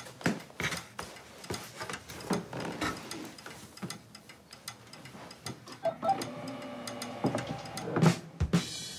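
Irregular clicks and knocks of a person shifting onto an Omeo self-balancing wheelchair and handling its frame and controls. A steady tone joins from about six seconds in.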